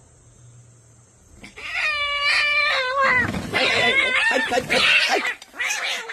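A cat yowling loudly. A long, drawn-out call begins about a second and a half in and is followed by rougher, harsher cries.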